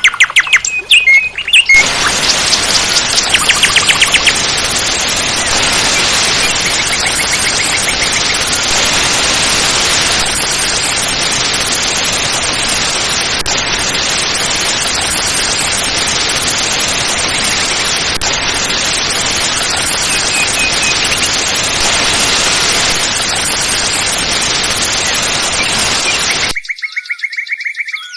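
Steady rush of falling water from a small waterfall, loud and even, with birds chirping over it. The rush starts abruptly about two seconds in and cuts off near the end, leaving only bird chirps.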